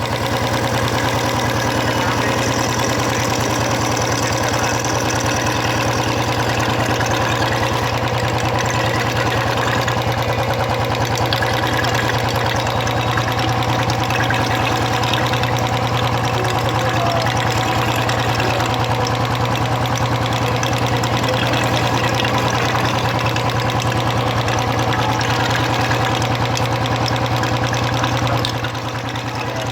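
Royal Enfield Electra 350's single-cylinder engine idling steadily, without tappet noise: with a new oil filter, oil is reaching the valve gear again. The level dips briefly near the end.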